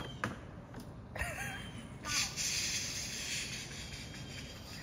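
Car trunk released by remote key fob: a sharp click, then a steady hiss from about two seconds in.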